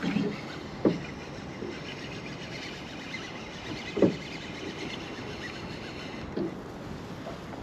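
Steady wind and water noise on a small open fishing boat, broken by three short, dull knocks a few seconds apart. The loudest come about a second in and about four seconds in, and a fainter one follows near the end.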